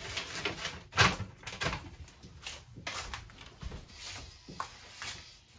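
Leftover tile sheets and cardboard being picked up and set down on a kitchen countertop: a series of light knocks and handling noises, the sharpest about a second in.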